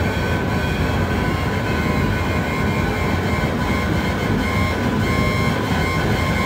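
Home-built light-responsive oscillator synthesiser (the OSC^n) putting out a dense, steady low noise with several thin held tones above it, driven by the projected light flashes.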